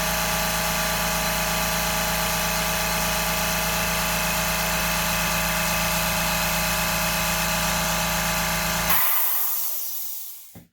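Excell ultra quiet 2-gallon oil-free air compressor running with a steady motor hum. About nine seconds in it cuts off with a short burst of hissing air, and the sound dies away.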